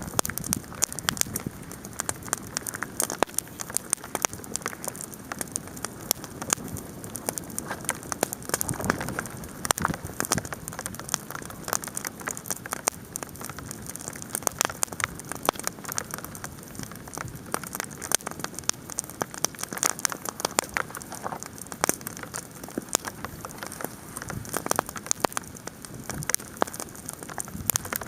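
Campfire crackling and popping in a dense stream of sharp clicks, with hail pattering down.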